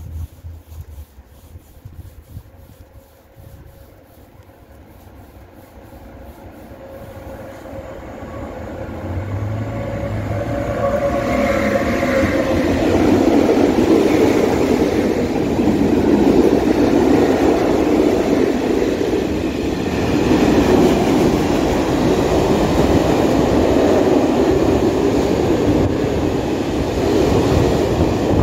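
An electric freight train, ET22 locomotive hauling a long rake of open coal wagons, approaching and passing close by: the sound grows from faint to loud over the first dozen seconds, then the wagons' wheels run past on the rails in a steady loud rolling clatter.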